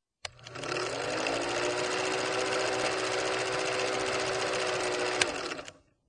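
Old cine film projector running: a click, then the motor hum rising to speed under a steady rattle of film through the gate, a sharp click about five seconds in, and the sound dying away near the end.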